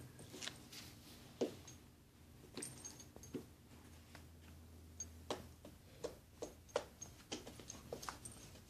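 Soft scattered taps, scuffs and rustles of a kitten and a pit bull play-fighting on a rug, with a faint steady low hum underneath.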